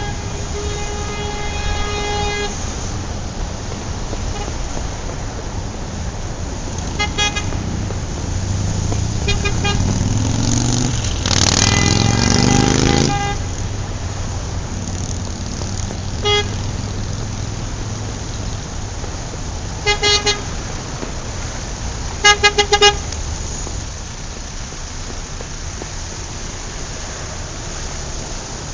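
Busy city street traffic: a steady rumble of cars with car horns honking. There is one long horn blast at the start, then short toots scattered through, some in quick double and triple beeps. About ten seconds in, a rising engine note builds into a loud passing vehicle.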